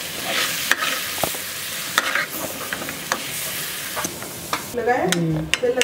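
Chicken dak bungalow curry with egg sizzling in a hot pan while a metal ladle stirs it, with repeated sharp knocks and scrapes of the ladle against the pan. The sizzling cuts off near the end.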